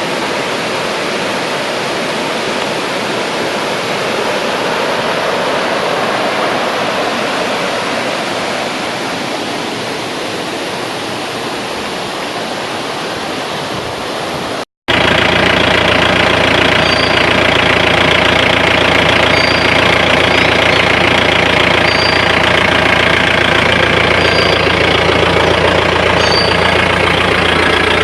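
Small roadside waterfall rushing in a steady noise; about halfway through it cuts off and a vehicle's engine takes over, running in a steady drone while driving.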